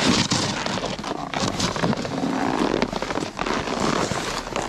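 Snowboards scraping and crunching over packed snow, a continuous crackling hiss.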